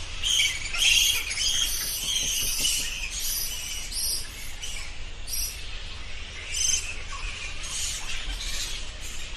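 Bats squeaking and chittering: a dense run of short, high-pitched chirps in clusters, over a faint low hum.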